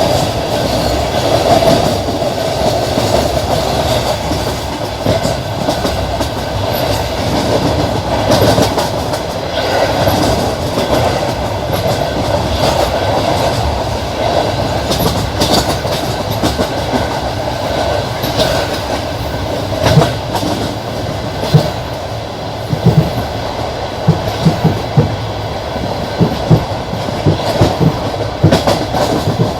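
Passenger train running along the line, its wheels rumbling steadily and clacking over the rail joints. The clacks come sharper and more distinct, in quick pairs, in the last third.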